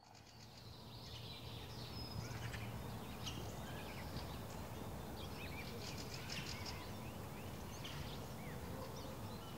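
Faint ambience of birds calling, many short chirps and whistles, over a low steady background noise, fading in over the first two seconds.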